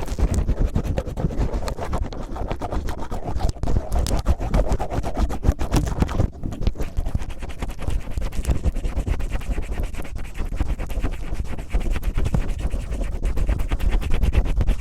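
Cellophane rubbed and crinkled directly on a microphone in rapid, rough scratchy strokes, an ASMR imitation of ear cleaning.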